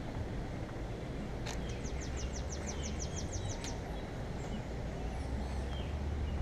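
A songbird sings a quick trill of about a dozen short descending notes, about two seconds in, with a few fainter chirps later. A steady low rumble runs underneath.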